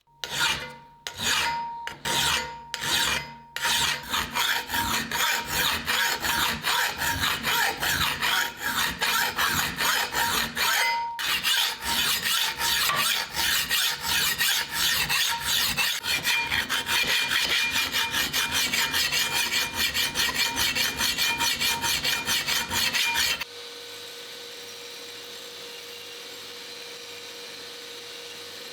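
A hand file rasping on the steel of a rusty meat cleaver. A few slow strokes come first, then fast, even back-and-forth strokes at about four a second. About 23 seconds in the filing stops suddenly and a quieter steady hum carries on.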